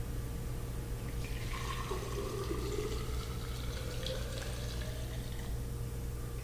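Solvent pouring into a container, with a faint pitch that slowly rises as it fills.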